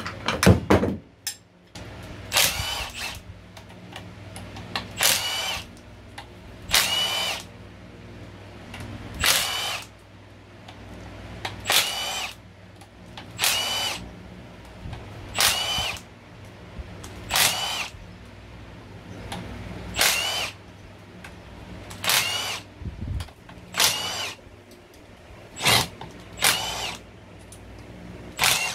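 Handheld power tool run in short bursts, about one every two seconds, each with a motor whine that rises as it spins up, as bolts are undone on the engine.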